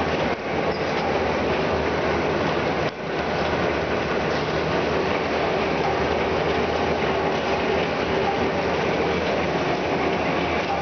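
A flexo printing machine running steadily: a continuous mechanical clatter over a low hum.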